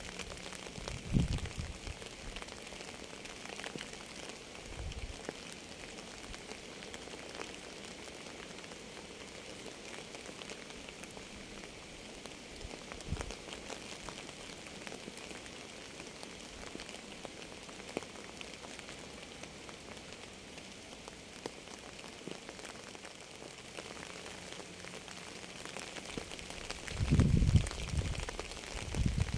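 Steady rain falling, an even hiss of drops, broken by a few short low thumps, the loudest a cluster near the end.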